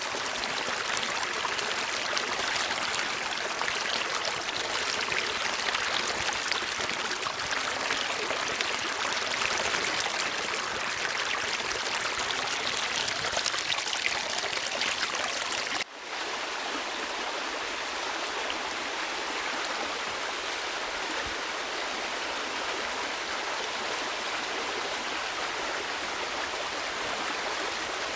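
Running water flowing steadily. About halfway through the sound dips for an instant and carries on slightly softer and smoother, as from a splice into another water recording.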